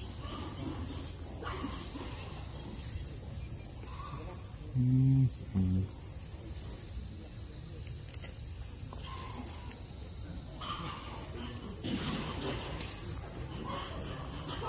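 Steady high-pitched drone of forest insects throughout. About five seconds in, two short, low-pitched sounds, one right after the other, are the loudest thing heard.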